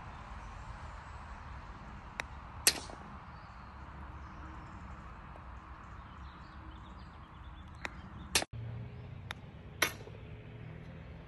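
Three short golf chip shots, each heard as a light click followed about half a second later by a louder sharp knock with a brief ring.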